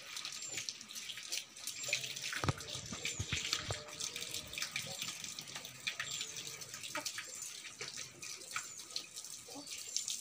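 Water splashing and dripping as a dog is washed by hand, water scooped and rubbed over its wet coat, with a steady patter of small splashes.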